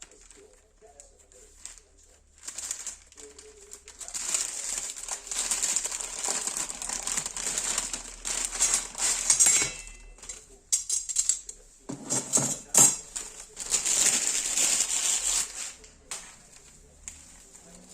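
Two long stretches of hand-worked scraping or rubbing noise, with a few knocks between them.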